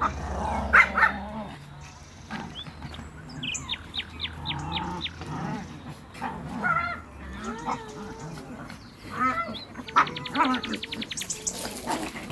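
Small dogs barking and yelping in short bursts, with birds chirping.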